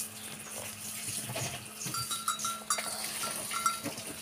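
Cattle at a wooden feeding trough: scattered knocks and rustling of leafy fodder. A few short, high-pitched pips sound faintly in the middle.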